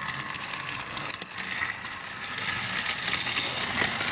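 Battery-powered TrackMaster toy engines running along plastic track, their small motors and gears going steadily and getting louder in the second half.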